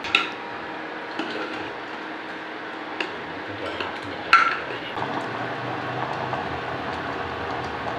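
Steel ladle stirring thick pumpkin curry in a pressure cooker pot: soft squishy stirring with about five sharp metal clinks of the ladle against the pot, the loudest a little over four seconds in, over a steady low hum.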